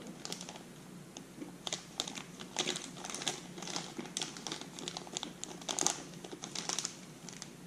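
Crinkly wrapper of a small dark chocolate being unwrapped by hand: an irregular run of sharp crackles.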